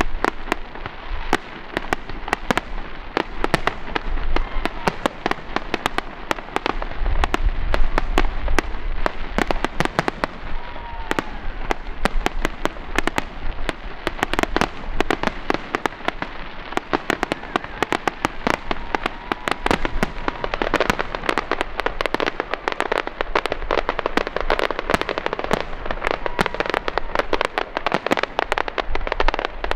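Fireworks display: a continuous rapid string of aerial shell bursts and crackling, with deep booms heaviest about seven to eight seconds in.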